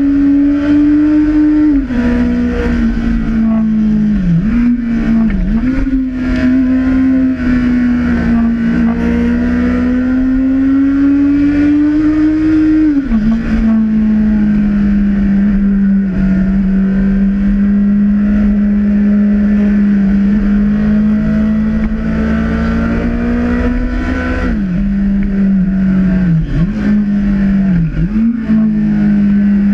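Honda CB1000R's inline-four engine running under way on the road. Its pitch climbs slowly, then steps down sharply three times to a lower steady note, with a few quick dips and recoveries in between.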